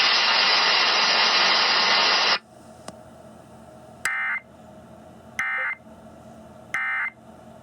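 Weather radio reception hiss that cuts off sharply about two seconds in, then three short EAS end-of-message data bursts, warbling digital tones about a second and a third apart, that close the flash flood warning.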